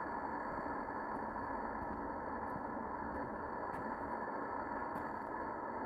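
Accucraft Decauville 0-4-0T live-steam locomotive standing while raising steam: a steady rushing hiss from its gas-fired boiler, with a faint high steady tone above it.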